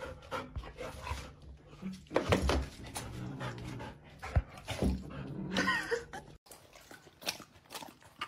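A dog panting and whining in excitement, with scuffles and knocks, as it lunges at a cat. The sound drops to a few quiet clicks about six seconds in.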